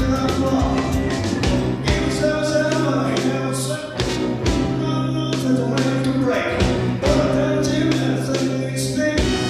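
Live rock and roll band with a singer, over regular drum strokes and a steady bass line, from a 1996 concert recording transferred from cassette tape.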